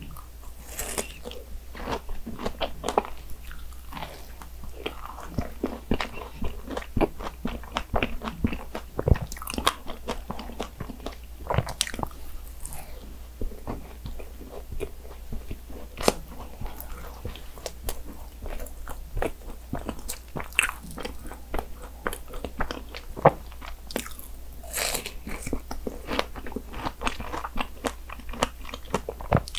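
A person eating strawberry cream desserts, a small pastry tart among them: bites and chewing, with many small sharp crisp clicks throughout.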